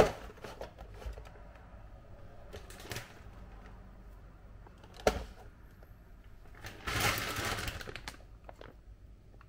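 Frozen food packaging being handled and set down on a wooden tabletop: cardboard boxes knocking on the wood, the sharpest knocks at the outset and about five seconds in, with lighter taps between. About seven seconds in comes roughly a second of crinkling from a plastic freezer bag.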